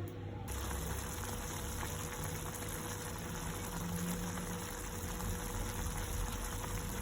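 Gas stove burner flame hissing steadily as a yam roasts on top of the stove, starting abruptly about half a second in.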